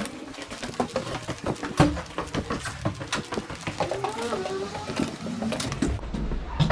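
Footsteps and light taps while walking through a building hallway, a quick irregular run of clicks. A bird chirps a few times about four seconds in.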